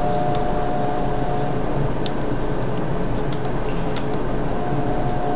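Steady background hum and hiss, with a few faint clicks in the middle from handling a compact digital camera.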